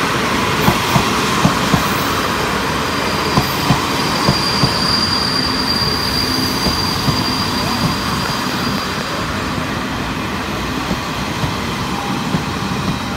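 Fu-Hsing express passenger cars rolling slowly past as the train slows into the station, the wheels clicking over rail joints in pairs that come further apart. A thin high wheel squeal is heard from about three to nine seconds in.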